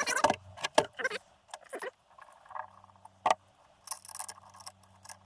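Scattered clicks and clinks of metal tools and engine parts being handled, with a short run of scraping or rustling strokes about four seconds in.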